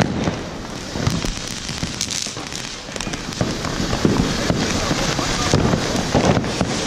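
Ground fireworks going off: a fountain spraying sparks with a steady hiss, with dense crackling and many short sharp pops throughout.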